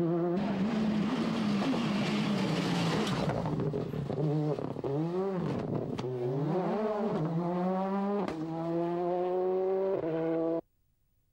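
1999 Ford Focus WRC rally car's turbocharged four-cylinder engine at high revs, its pitch dipping and climbing around the middle, with a few sharp cracks. The sound cuts off suddenly near the end.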